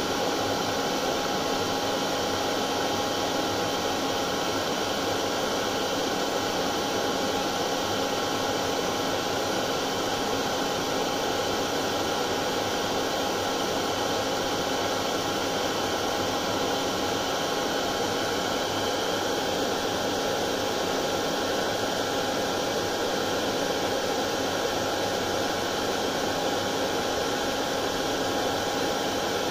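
Hair dryer running steadily: an even rush of blown air with a faint steady whine from its motor and fan.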